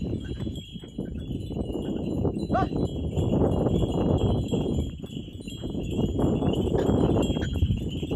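Brass bells on the neck collars of a pair of working bullocks ringing steadily as the animals walk pulling a seed drill, over a louder low rumble. A short rising call sounds once, about two and a half seconds in.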